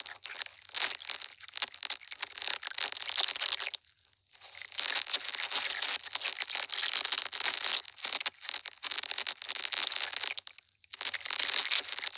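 Close-miked scratchy, crinkling handling noise from makeup items, in long bursts with short pauses about 4 and 11 seconds in.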